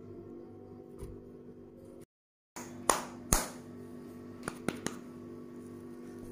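A few sharp pats and slaps of hands shaping a raw-banana kofta mixture into patties, over a steady low background tone. The sound cuts out completely for a moment about two seconds in.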